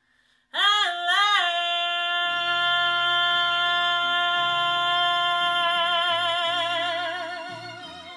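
A soprano voice sings a long held final note: two quick scoops up to the pitch about half a second in, then a long sustained note whose vibrato widens before it fades near the end. Low sustained accompaniment notes enter beneath it about two seconds in.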